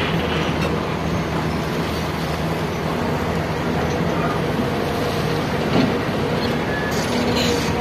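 Excavator engine running steadily with a low hum.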